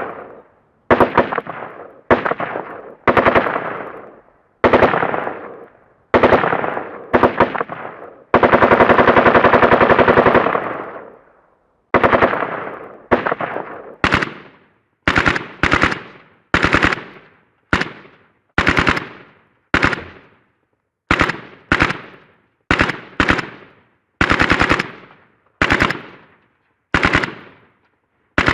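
Automatic gunfire in about twenty short bursts, each trailing off in an echo, with one long sustained burst of about two and a half seconds about eight seconds in.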